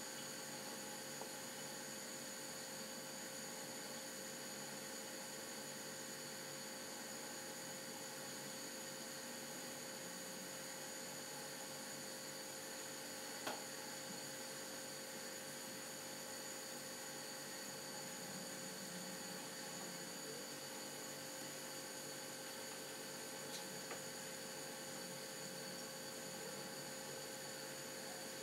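Faint, steady electrical hum with a thin high whine over a light hiss, broken by a single soft click about halfway through.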